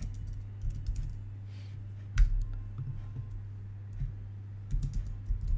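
Computer keyboard typing: irregular key clicks, one sharper click about two seconds in, over a steady low hum.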